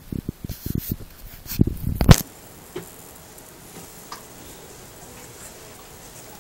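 Handling noise from a phone's microphone: a quick run of low thumps and rubbing in the first two seconds, the loudest just after two seconds in. Then it is quieter, with a couple of faint clicks.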